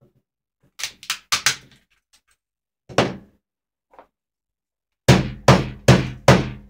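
Hammer striking a cloth-wrapped mobile phone on a wooden desk: a few sharp knocks about a second in, another at about three seconds, then four heavy thuds in quick succession near the end.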